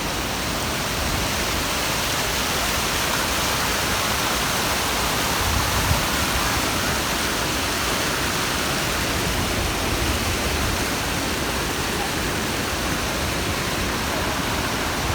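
Steady rush of river water flowing fast over a rocky causeway and cascading down small falls.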